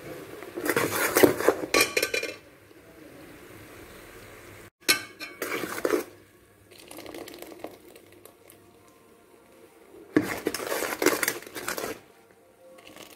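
Metal ladle scraping and clinking against the side of a metal pot as it stirs boiling jaggery syrup, in three short bouts with a softer steady hiss between. The syrup is being boiled down to thread consistency.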